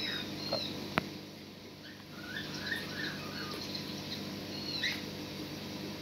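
Faint, short high-pitched chirps from small animals, a few in quick succession about two and a half seconds in and one more near five seconds, over a steady background hum. A single sharp click about a second in.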